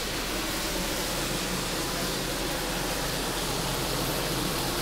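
Steaks sizzling steadily in a hot cast-iron skillet as they finish searing.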